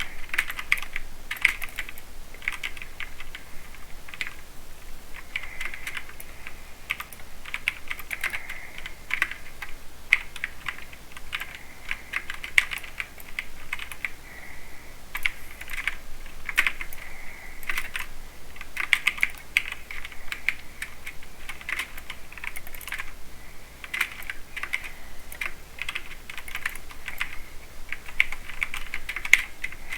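Typing on a mechanical keyboard with Cherry MX Silver speed switches, a light linear switch. A fast, irregular stream of key clicks, thinning briefly about halfway through.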